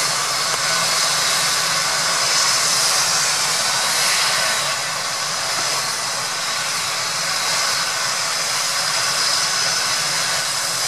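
Airbus medical helicopter's turbine engines running steadily on the ground, a constant hissing whine with no change in pitch.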